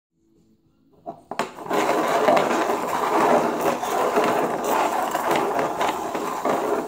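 Plastic cups being slid and shuffled across a tile floor: a continuous scraping and rubbing with many small clicks, starting about a second and a half in.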